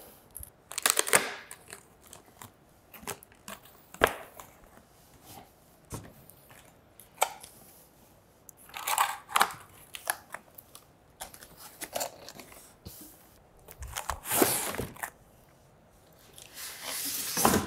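Cardboard packing box being opened by hand: flaps pulled back and dragged, with irregular tearing, scraping and rustling and a few sharp knocks, then cardboard rubbing against the foam packing inside near the end.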